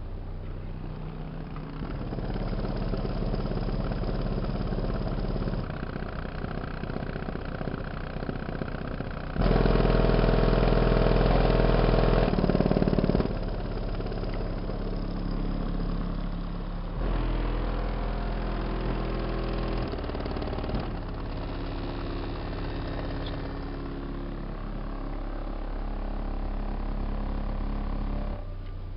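Chevrolet Tahoe engine running in a series of short cut-together takes: mostly steady idling, with a louder stretch of higher revs about a third of the way in.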